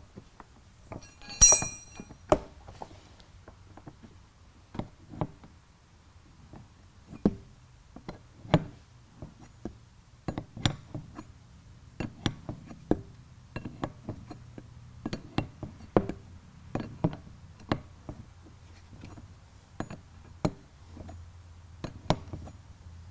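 Wrench clicking and tapping against metal fuel-line fittings as they are tightened, in irregular sharp clicks and knocks, with one louder ringing metallic clink about a second and a half in.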